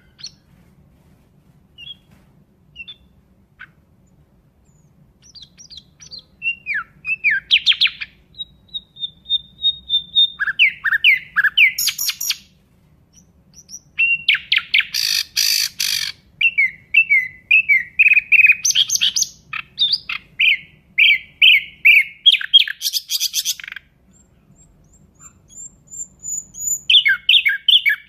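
Nightingale singing in varied phrases of rapid chirps, trills and clear whistles, with pauses between phrases. It includes a long thin whistle, and about halfway through a harsh rasping note.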